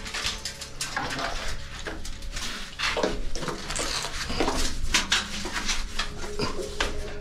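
A miner's hand tool striking and scraping the rock of a narrow gold-mine shaft: irregular clinks and knocks, sounding close and boxed in.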